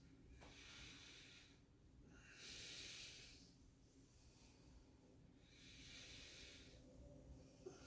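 Three faint, slow breaths of a person, each a soft airy rush lasting about a second, spaced a few seconds apart.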